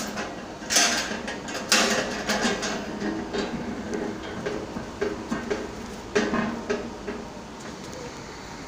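Metal clanks and rattling from a coin-operated manual napkin vending machine being worked to dispense a napkin: a click, two loud clanks about a second apart, then a run of lighter rattles that fade out.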